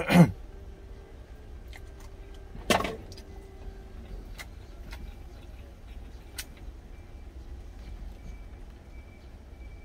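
Chopsticks clicking now and then against a plastic food container over a steady low rumble in a truck cab. Two short loud sounds come right at the start and about three seconds in.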